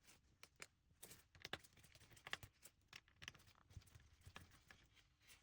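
Faint, irregular small clicks and ticks of a screwdriver working tiny screws out of a metal plate inside an iPad Pro.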